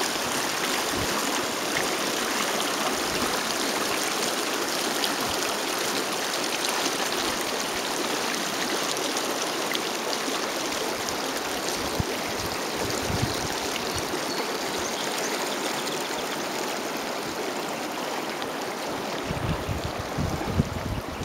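River water running steadily, a constant even rush of flowing water. Near the end, wind starts buffeting the microphone with low rumbling gusts.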